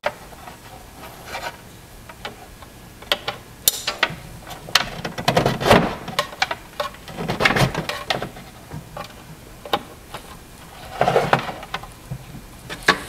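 Irregular plastic clicks, knocks and cable rustling as an Ethernet cable and power lead are plugged into a Eufy HomeBase 2 and the unit is handled and set down on a shelf.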